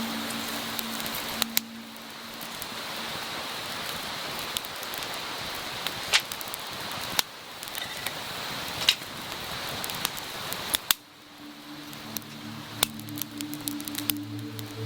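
Wood fire crackling: a steady hiss with scattered sharp pops.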